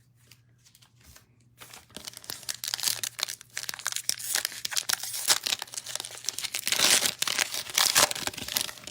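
Wrapper of a pack of football trading cards being torn open and crinkled, a dense crackling that starts about a second and a half in and grows louder toward the end.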